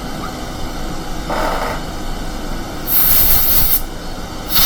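Two short hisses from a spray can, each about a second long, the first about three seconds in and the second at the very end, over a steady whir of bench equipment.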